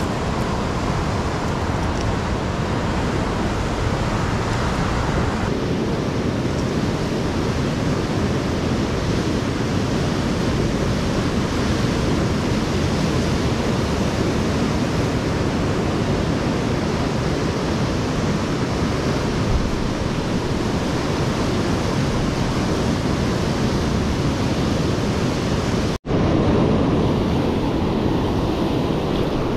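Steady rush of ocean surf and wind, with a momentary gap near the end.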